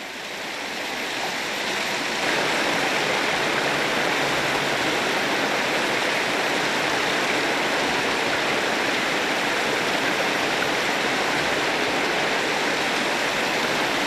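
Small mountain stream cascading over rocks: a steady rush of water that swells over the first two seconds and then holds even.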